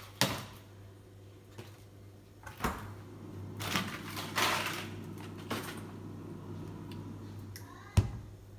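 Objects being handled: three sharp knocks, one near the start, one about two and a half seconds in and one near the end, with a stretch of rustling and scraping in the middle, over a low steady hum.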